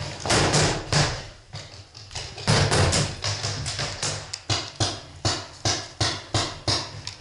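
Paintball markers popping in sharp shots, about two a second in the second half, while paintballs are poured from a pod into a hand-held loader.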